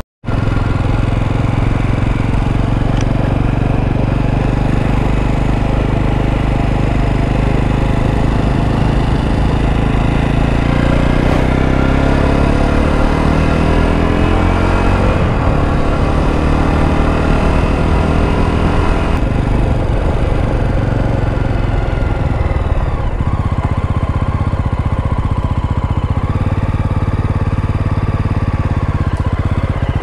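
Motorcycle engine running as the bike rides along, with wind noise over it. Around the middle the engine note sweeps up and down as the speed changes, then runs steadier with less wind hiss through the last third.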